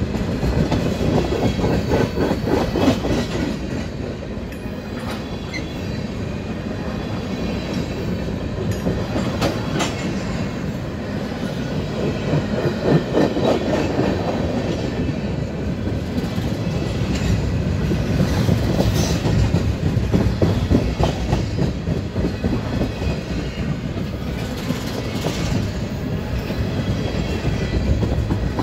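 Steel wheels of a CSX freight train's tank cars rolling past close by: a steady rumble with rhythmic clickety-clack as the trucks cross rail joints, and now and then a faint high wheel squeal.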